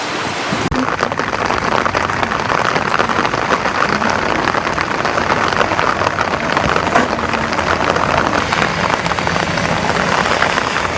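Steady rain falling, with a dense patter of drops.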